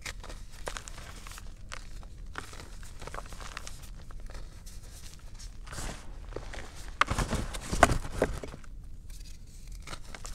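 Thin blocks of gym chalk crushed and crumbled in a hand over loose chalk powder: dry crackling crunches with a soft powdery rustle. The loudest burst of crunching comes about seven to eight and a half seconds in.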